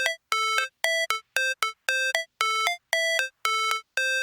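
Background music: a synthesizer plays a repeating staccato melody of short, bright notes, about three a second, stepping between a few pitches with brief silences between them.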